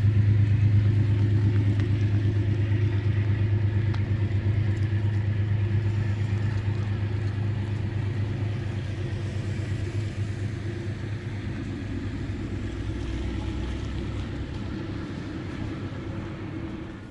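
Diesel locomotive engine running with a steady low hum and fast flutter, slowly fading as it pulls away.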